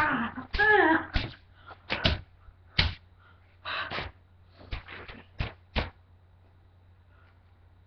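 A broom being beaten, giving a quick run of about a dozen sharp whacks and cracks over six seconds, with a wordless yell in the first second.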